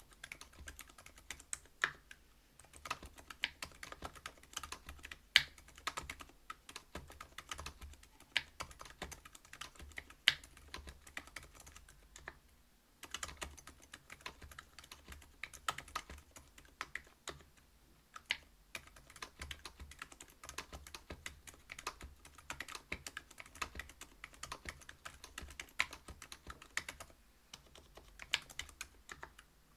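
Typing on a Whale 75 mechanical keyboard with stock Silent Alpaca 62 g linear switches, a brass plate and PBT keycaps: a fast, uneven stream of keystrokes, broken by two short pauses.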